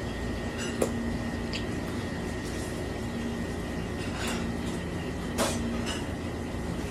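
A steady hum of kitchen machinery under a few short knocks and taps as raw octopus is handled on a work board, with one knock about a second in and another late on.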